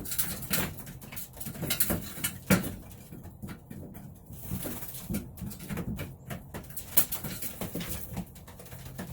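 Racing pigeons in a loft cooing, with many short clicks and scuffs scattered through it.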